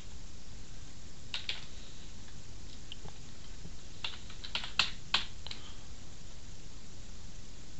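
Computer keyboard keystrokes: two quick key presses about a second and a half in, then a short run of clicks from about four to five and a half seconds in, with two sharper, louder presses in the middle of it.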